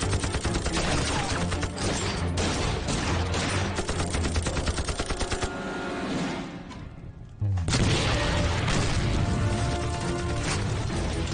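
Rapid automatic gunfire, a dense rattle of shots over background music; the firing drops away about six seconds in and comes back abruptly with a heavy low boom just before eight seconds.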